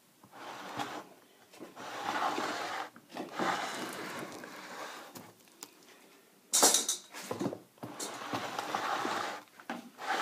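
Running knife for plaster cornice, a sheet-metal profile on a wooden sled, pushed along the wet plaster moulding in repeated scraping strokes, each one to two seconds long, shaping the run. There is one sharp knock about six and a half seconds in.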